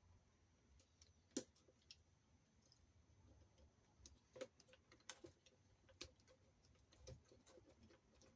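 Faint, scattered clicks and taps of small RC-car parts and a hand tool being handled, about half a dozen in all, the sharpest about a second and a half in.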